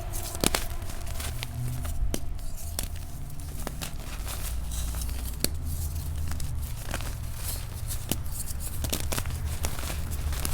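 Very soft gym chalk being crumbled: irregular crisp crackles and crunches, over a low steady hum.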